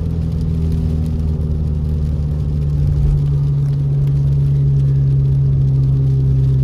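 Car driving steadily on a wet road, heard from inside the cabin: a steady engine and road hum.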